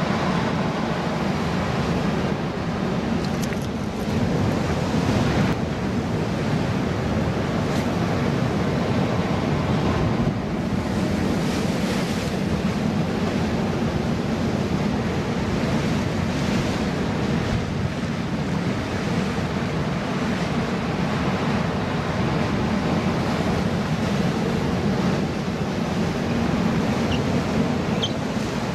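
Ocean surf breaking and washing over the boulders of a rock wall, a steady rush with a heavy low rumble, with wind buffeting the microphone.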